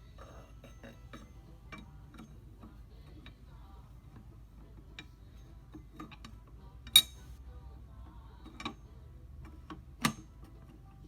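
Metal clicks and clinks of a wrench working an AR-15 barrel nut onto the upper receiver, with scattered light ticks and a sharp clank about seven seconds in and another about ten seconds in.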